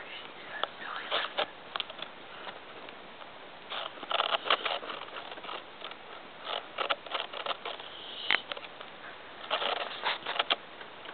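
Small dog shifting in a fabric dog bed: short scratchy scuffs and rustles in a few irregular clusters.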